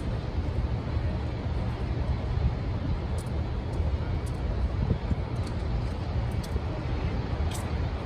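Steady low rumble of city street traffic, with a few faint, short high ticks scattered through it.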